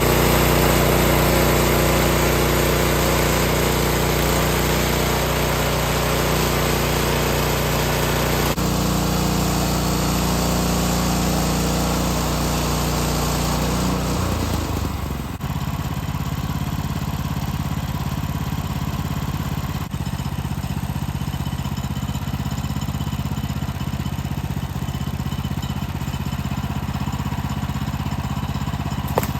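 Small gasoline engine of a portable sawmill running steadily at speed; about halfway through its pitch drops and it carries on at a lower, steadier note.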